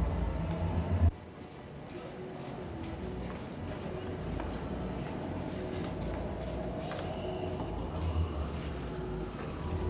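Crickets chirping steadily, in high, finely pulsing trills, with shorter chirps repeating every second or so. A low rumble underneath cuts off abruptly about a second in.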